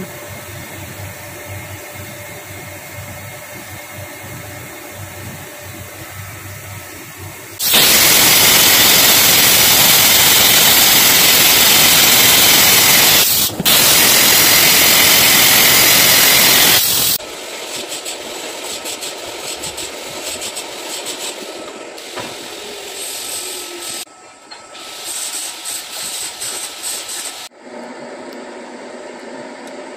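Wire metal-spray gun spraying aluminium bronze onto a shaft turning in a lathe: a loud, even hiss that starts about eight seconds in and lasts about nine seconds, with a brief break partway. Before and after it, the lathe running, with uneven on-off machining sounds in the later part.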